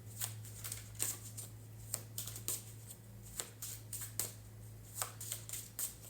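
Tarot cards being shuffled and handled, a run of irregular soft flicks and rustles, over a steady low electrical hum.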